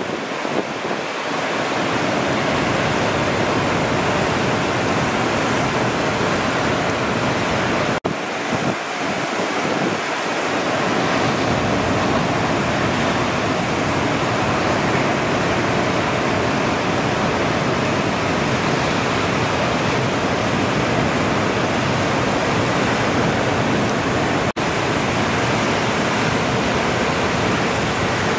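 Steady rushing noise of ocean surf and wind, with no single wave standing out. It cuts out for an instant twice, where the footage is spliced.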